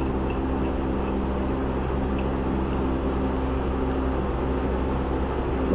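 Steady mechanical hum of several low tones that does not change, like a fan or other running machine in the background.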